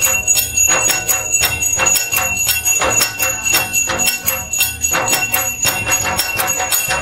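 Small brass hand bell (ghanti) rung rapidly and without pause for aarti worship: a fast, even run of strikes several times a second over a sustained high ring.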